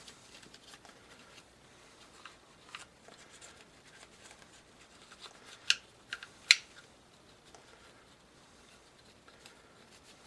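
Handling noise from wiping the polymer frame of a Glock 19 Gen 4 with a cloth: faint rubbing, and a few sharp clicks a little over halfway through.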